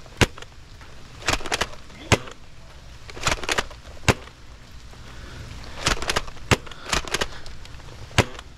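Dart Zone Max Tomcat foam-dart blaster being primed and fired over and over: clusters of plastic clacks, each followed by one sharp snap of a shot, about four shots in all.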